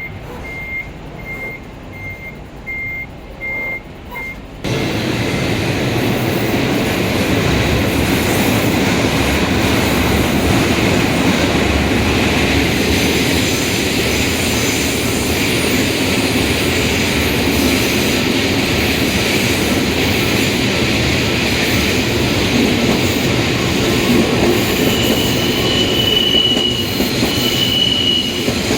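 Japanese level-crossing warning alarm beeping about twice a second. About five seconds in, a train suddenly starts passing close by: the rumble and clatter of wheels on rail, with two short high wheel squeals near the end.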